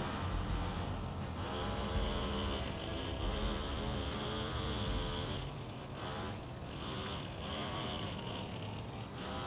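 A motor running steadily, its low rumble falling away about halfway through.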